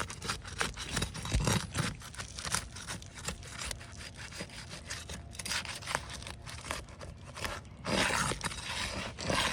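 Asphalt roof shingles being pried up and scraped apart to break the sealant strip that bonds them: a run of short rasping scrapes, with a longer, louder stretch near the end.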